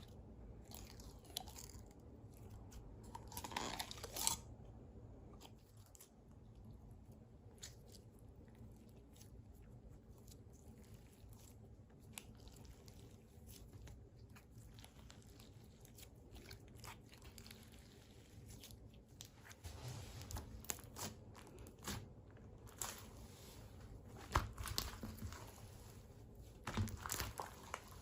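Clear slime with pearl beads being squeezed and poked by hand: faint sticky crackles and small pops, in a louder cluster about four seconds in and busier again over the last several seconds.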